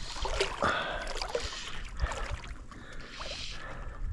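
Water splashing and trickling close to a small boat, with a few light knocks.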